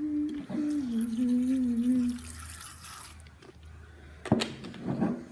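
A person humming a few wavering notes, dropping from a higher note to a lower one. About four seconds in there is a sharp knock.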